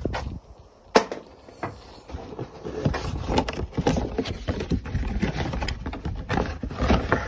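Plastic air filter and airbox on a Ford Focus 1.0 EcoBoost being handled as the filter is worked into the housing: a sharp click about a second in, then a run of clicks, knocks and plastic scraping.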